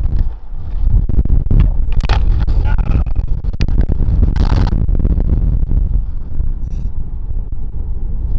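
Skateboard wheels rolling on pavement, a loud steady low rumble with wind buffeting the microphone. A short sharp scrape comes about four and a half seconds in.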